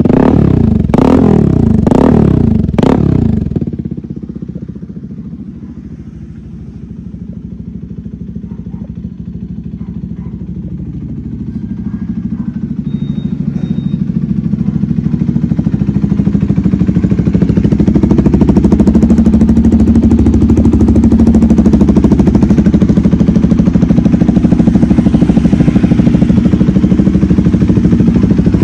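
CFMoto 300SR single-cylinder engine through an aftermarket Austin Racing exhaust, blipped sharply about four times in quick succession, then dropping to idle. Its note then builds gradually and holds loud and steady through the second half.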